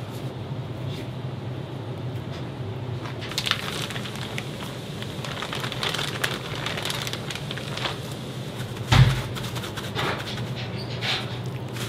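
Thin plastic bag crinkling and rustling as a raw pork loin is handled out of it, then one heavy thud about nine seconds in as the meat lands on the plastic cutting board. A steady low hum runs underneath.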